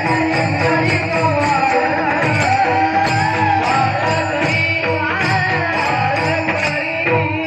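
Devotional bhajan singing, a high voice carrying a wavering melody over a sustained drone of held notes, with a steady rhythm of jingling hand percussion.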